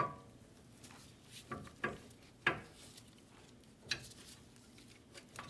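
Brake caliper with its pads being slid over the rotor and seated onto the caliper bracket by hand: a handful of light metal knocks and clicks.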